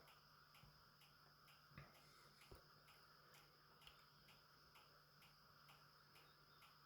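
Near silence: a faint steady hum with a faint, regular ticking about twice a second and a couple of soft clicks about two seconds in.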